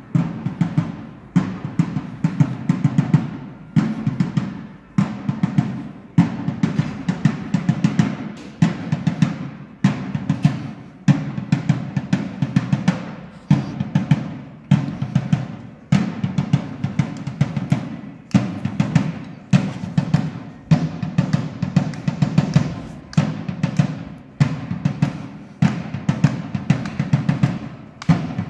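Drum kit being played in a steady, driving beat, with bass drum and snare hits and a strong accent about once a second.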